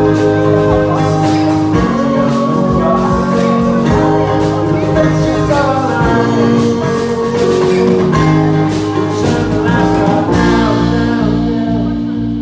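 Live band of electric bass, drum kit, acoustic guitar and keyboard playing a song with a lead vocal. About ten seconds in the drums and cymbals stop, leaving a held chord ringing.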